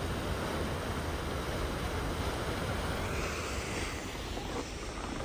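Steady rush of Athabasca Falls, a large waterfall, heard as an even noise without pauses.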